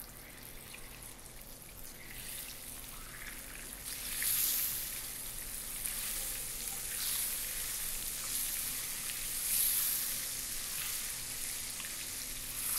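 Margarine sizzling and bubbling as it melts into hot caramel in a pan, stirred in with a silicone spatula: the start of a caramel sauce, made with the heat off. The hiss builds about two seconds in and swells twice.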